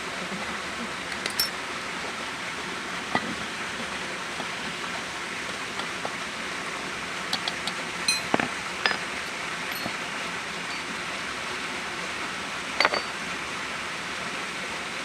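Scattered sharp metallic clinks and taps of tools against the Yamaha Mio gearbox casing being taken apart for a bearing change, over a steady background hiss. The loudest clinks come about eight seconds in and again near the end.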